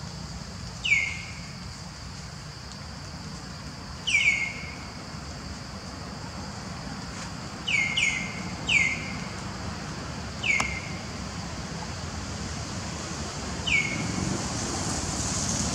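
Infant long-tailed macaque crying: seven short, high-pitched squeals, each falling in pitch, spaced unevenly with three in quick succession about eight seconds in.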